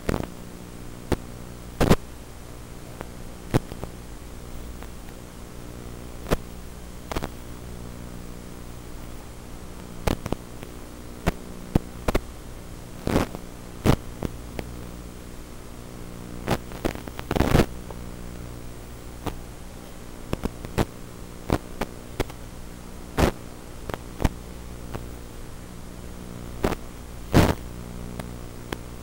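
Steady electrical buzz and hiss from an analog FPV video link's audio channel, recorded by the goggle DVR, broken by irregular crackling pops of interference, loudest around the middle and near the end.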